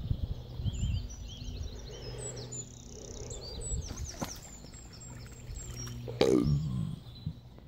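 Small birds chirping, with low rustling and handling thumps near the start, then a sudden water splash with a quickly falling, gulping tone about six seconds in as a carp is let out of a sling into a pond.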